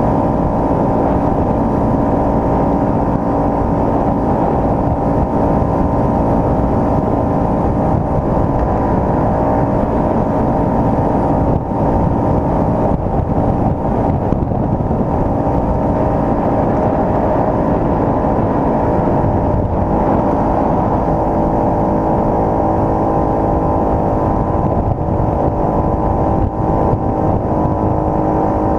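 Yamaha Cygnus scooter, converted to a reverse trike, with its single-cylinder four-stroke engine running steadily at cruising speed along with wind and road noise.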